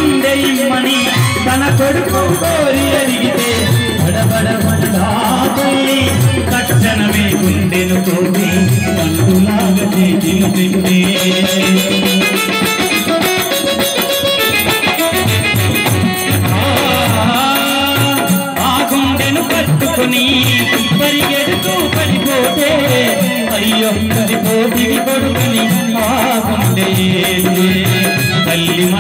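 Telugu devotional bhajan music: an electronic keyboard plays a gliding melody over steady jingling hand percussion and drum.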